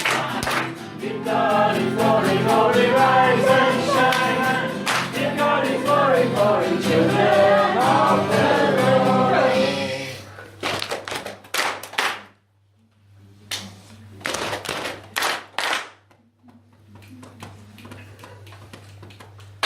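A group of people singing together, many voices in unison. The singing stops about halfway through, and scattered sharp claps follow over a faint steady hum.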